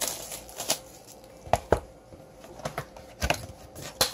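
Cardboard and foil wrapping of a trading-card hobby box being opened and handled: irregular sharp clicks, taps and crinkles, the loudest about a second and a half in and just past three seconds.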